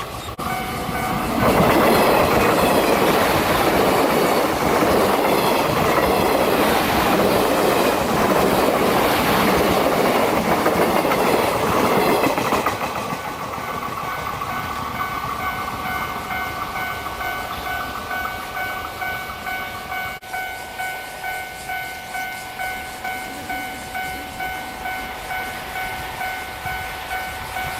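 A train passes close by at speed, its wheels clattering over the rail joints, from about a second and a half in until about twelve seconds in, and then it is gone. Throughout, a railway level-crossing alarm bell rings. Once the train has passed, its rhythmic clang stands out at about one and a half strikes a second.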